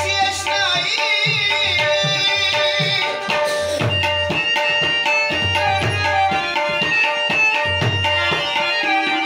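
Harmonium and tabla playing an instrumental passage of a ghazal: the harmonium plays a melody over a steady held drone note while the tabla keeps a brisk rhythm of sharp strokes and deep bass strokes.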